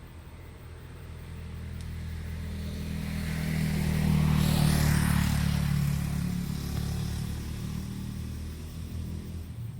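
A motor vehicle driving past: its engine hum and tyre noise build up, are loudest about halfway through, then fade away.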